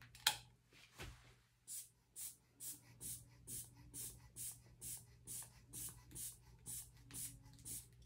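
Rubber inflation bulb of a manual blood pressure cuff being squeezed over and over to pump up the arm cuff, a short puff of air a little more than twice a second. A few handling clicks come before the pumping starts.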